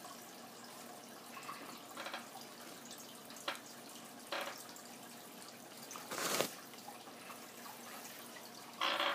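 Soft, wet, sticky clicks from homemade gelatin gummy bears being pried out of a silicone mold and chewed, a few scattered ticks. About six seconds in comes a longer hiss, the loudest sound, and a short louder sound just before the end.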